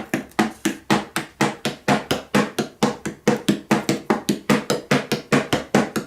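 Hammer blows struck in a fast, even rhythm, about three or four a second, each with a short ring.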